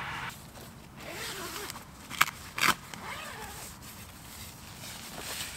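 Nylon tent fabric rustling as a lightweight backpacking tent's flysheet and pole are handled, with two sharp clicks about half a second apart a little over two seconds in.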